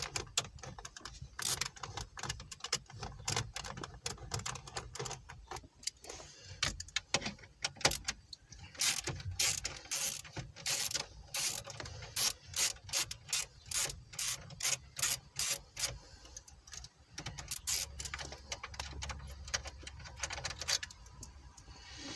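Small hand ratchet with a 7 mm socket clicking as it backs out the radio's mounting screws. The clicks come in runs, with a fast, fairly even stretch of about two a second in the middle.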